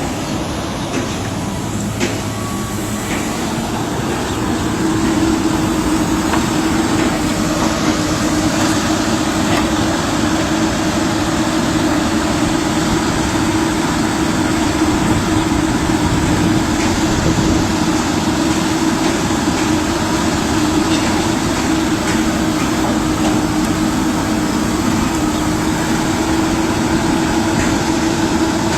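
Excavator engine running steadily, with a droning tone that grows louder about four seconds in and then holds.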